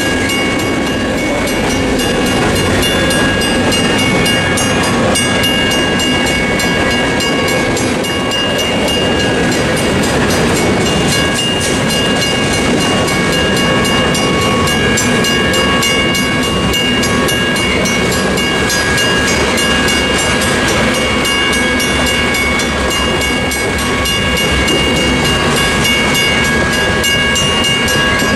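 Freight train cars rolling steadily through a level crossing, their wheels clattering and rumbling on the rails. A Western Cullen Hayes mechanical crossing bell rings continuously over the train's noise.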